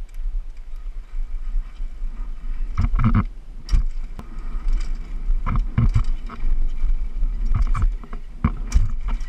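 Mountain bike riding fast down a rough dirt trail, heard from on the bike: a steady low wind rumble on the microphone, with irregular knocks and rattles as the bike hits bumps.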